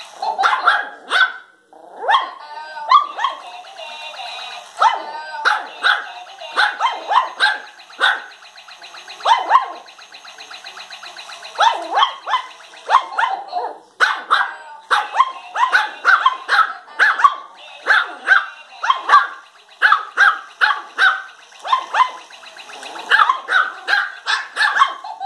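Yorkshire terrier puppies barking: short, high yaps in quick runs of several a second, with brief pauses between the runs.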